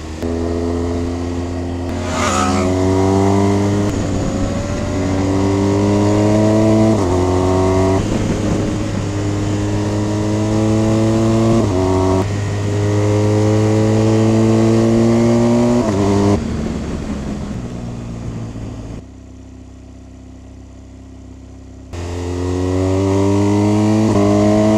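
Motorcycle's boxer-twin engine accelerating hard, its pitch climbing and then dropping back at each upshift, several times over, with wind noise. About nineteen seconds in it drops much quieter for around three seconds, then picks up and climbs again.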